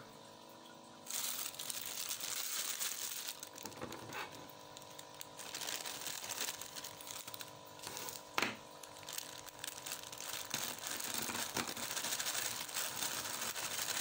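Plastic packaging crinkling and rustling as a bag of frozen mixed vegetables is handled and cut open with scissors, with two sharp clicks along the way.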